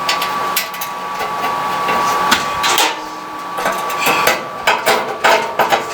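Irregular metallic clicks and knocks of a screw being started by hand into a clothes dryer's sheet-metal drum assembly, with the metal parts shifting and tapping against each other.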